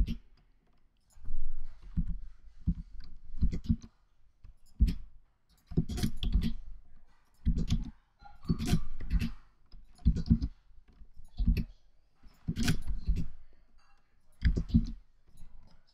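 Computer keyboard keystrokes and mouse clicks: irregular clusters of short, sharp clicks.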